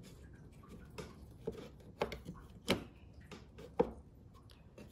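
Honda K-series rocker arm parts being handled on a workbench: a handful of scattered light metal clicks and knocks, the sharpest about four seconds in.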